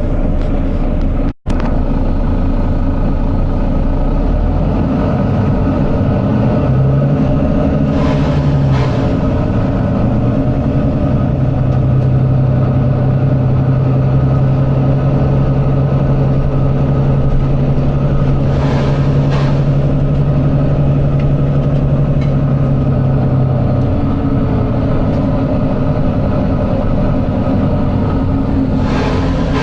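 Volvo B9TL double-decker bus running, its engine making a loud steady thrash. A droning tone comes in a few seconds in, holds for about a dozen seconds and then stops, and three short hisses of air sound at intervals.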